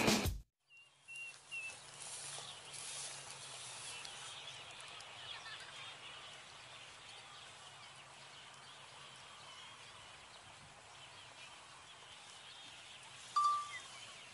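Music cuts off at the start, leaving quiet outdoor ambience with a faint steady hum and a few faint bird chirps. A single short, louder bird call sounds near the end.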